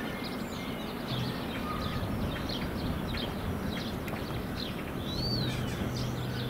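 Outdoor ambience of small birds chirping over a steady background hiss, with many short chirps and one clear rising-then-falling whistle a little after five seconds in.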